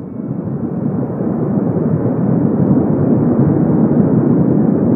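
Lava fountain erupting: a loud, steady, deep rushing rumble that swells over the first couple of seconds, then holds.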